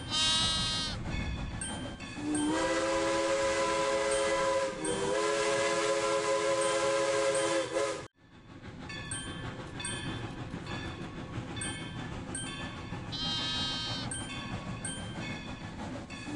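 Steam train sound effect: a steady rhythmic clickety-clack of wheels on rails, with a long steam whistle starting about two seconds in, held for about five seconds with a slight dip in pitch midway, then cut off abruptly. A short high call sounds near the start and again near the end.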